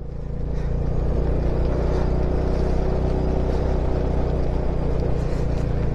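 Bajaj Dominar 400's single-cylinder engine running steadily while riding, a little louder over the first second, over a steady rush of noise.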